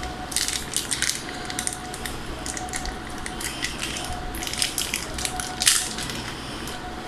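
Plastic packaging crinkling and rustling in quick, irregular crackles as the phone's bundled wired earphones are unwrapped.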